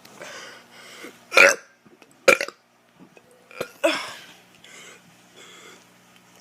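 A teenage boy burping on purpose: three loud burps about a second apart, the last one longer and drawn out.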